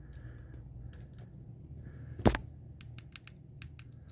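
Light clicks and knocks from handling a dryer's panels and parts while closing it back up, with one louder knock about two seconds in and a quick run of lighter clicks after it.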